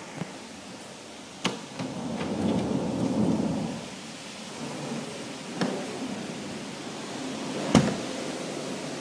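Thunderstorm with wind and heavy rain. A deeper rumbling swell builds about two seconds in and fades, and three sharp knocks come through, the last near the end the loudest.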